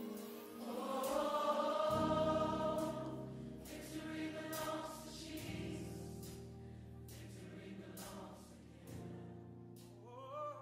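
The closing section of a gospel song: a choir sings long held notes over sustained music. It swells about one to two seconds in and then slowly dies away.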